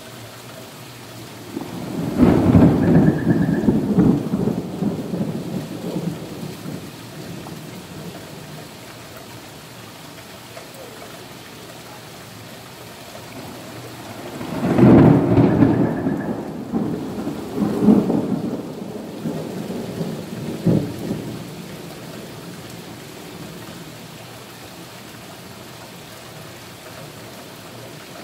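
Steady rain falling on wet pavement, with two long rolls of thunder: one building about two seconds in and rolling on for several seconds, and another starting about halfway through with several swells before it fades.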